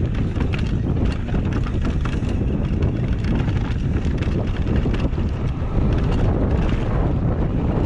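Wind buffeting the microphone of a downhill mountain bike descending a dirt trail at speed, with the tyres running over dirt and leaves and many small clicks and rattles from the bike jolting over bumps.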